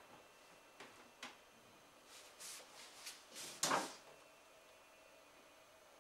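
Parts of a PC case's drive cage being handled: two light clicks about a second in, then a scraping slide, loudest near the end of the fourth second.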